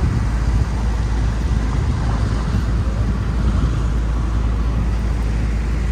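Busy city street: a steady low rumble of traffic, with faint chatter of passing people.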